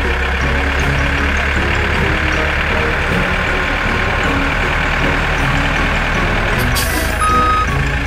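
Cartoon tractor engine sound effect running steadily. Near the end a short hiss sounds, then a high-pitched reversing beep starts, on and off, as the tractor backs up.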